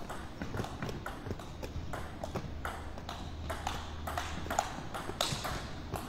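A table tennis rally: the ball clicking back and forth off the bats and the table in a steady run, about three clicks a second.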